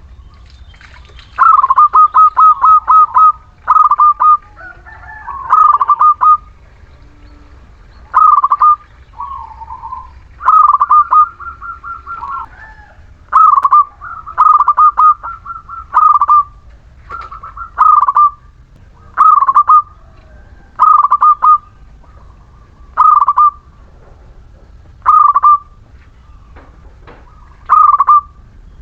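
Zebra dove (perkutut) of the local Muria strain cooing loudly: a fast run of clipped coos early on, then short cooing phrases repeated every second or two.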